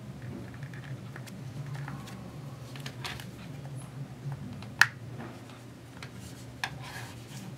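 Plastic outrigger hinge being worked onto a ski goggle frame by hand: scratchy handling, then a sharp snap about five seconds in and a smaller click near the end, over a low steady hum.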